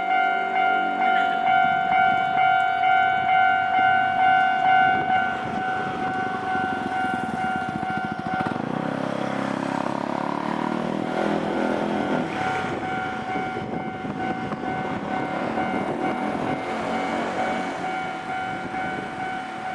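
Japanese railway level-crossing warning bell ringing in a steady, rapidly repeated ding. From about five seconds in to about thirteen seconds a Nankai Main Line train passes over the crossing with a rumbling, clattering rush of wheels on rails, and the bell keeps ringing after it has gone.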